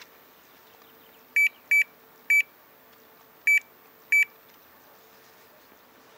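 Five short electronic beeps from an air conditioner indoor unit's buzzer, each one acknowledging a button press on the universal remote as the set temperature is raised.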